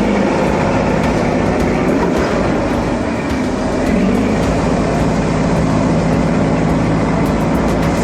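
Steady engine drone of a construction vehicle, a low held hum running on without a break.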